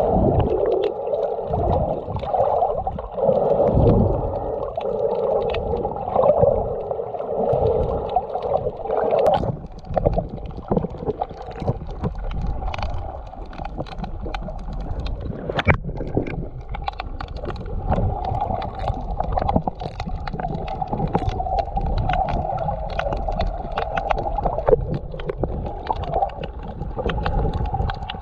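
Underwater sound picked up by an action camera in its waterproof housing: a steady muffled water rush with many sharp clicks crackling through it. About nine seconds in, the character of the rush changes abruptly.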